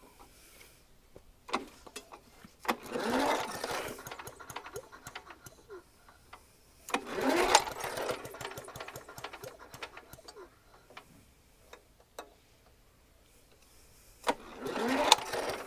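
Hayter Hayterette mower's petrol engine pulled over on its recoil starter three times. Each pull is a rising whir lasting about a second and a half, and the engine turns over without firing: it has no spark.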